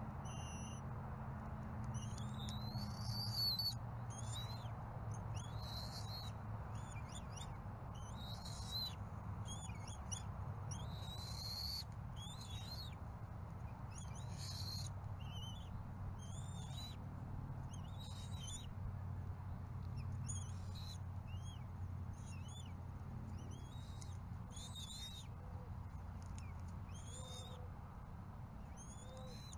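Short, high-pitched bird calls repeated about once a second, each one curving upward in pitch, over a steady low rumble and faint hiss.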